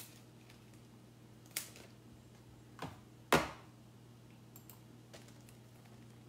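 Low steady hum of room tone, broken by three short taps or knocks, the loudest a little over three seconds in.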